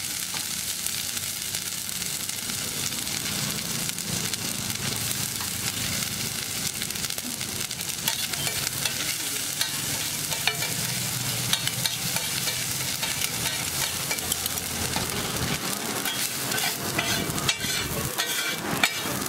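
Oil sizzling steadily on a flat street-food griddle as a chopped egg mixture fries, with a spatula stirring and scraping it across the griddle. The spatula's sharp clicks and scrapes start about halfway through and come thicker toward the end.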